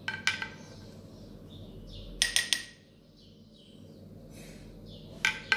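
Metal spoon clinking against a glass loaf dish while skimming foam off flan mixture: short ringing taps, once near the start, three quick ones about two seconds in, and a pair near the end.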